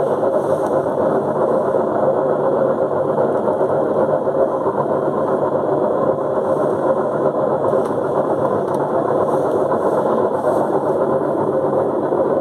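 Beko front-loading washing machine running in test mode, a steady mechanical hum that holds level throughout.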